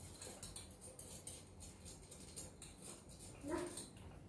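Faint clinks and rattles from a small metal traditional popcorn machine being handled, with a brief faint voice-like sound about three and a half seconds in.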